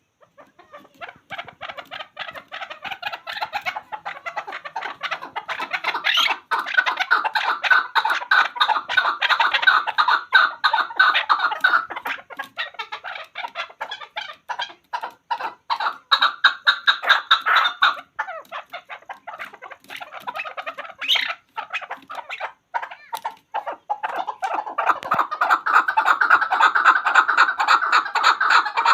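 Chukar partridge (chakor) calling: long runs of rapid clucking notes that build up, break off briefly a few times, and are loudest near the end.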